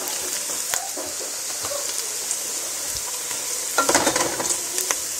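Freshly added shredded broccoli, carrot and red cabbage sizzling in hot oil in a pot, while a spatula stirs and scrapes through it. A few quick scrapes bunch together about four seconds in.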